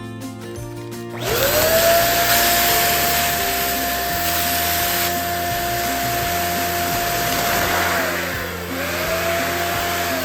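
Electric balloon pump switching on about a second in, its motor spinning up and running steadily with a rushing hiss of air. Near the end it winds down and starts up again, over background music.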